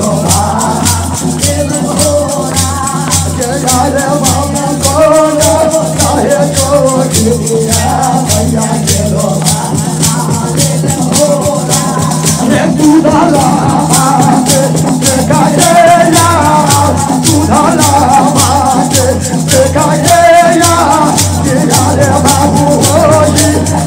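Devotional folk song (jhumar): a voice singing over a fast, even rattling percussion beat with a steady low drone beneath.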